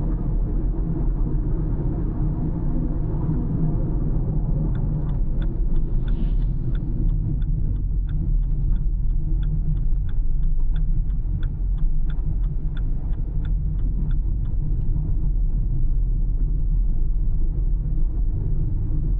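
A car being driven, with a steady low rumble from the road and engine. From about five seconds in, the turn-signal indicator ticks steadily, about three times a second, for some ten seconds, then stops.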